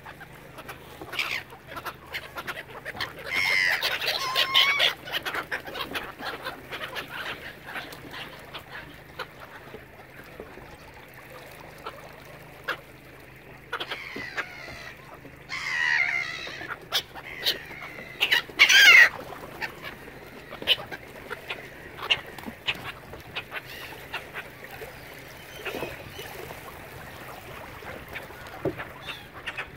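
Waterbirds calling: three louder calls stand out about four, sixteen and nineteen seconds in, amid many short clicks.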